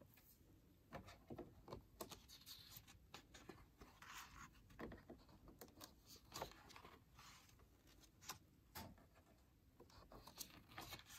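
Faint rustling and soft taps of a hardcover picture book being opened and its paper pages turned, in scattered short bursts.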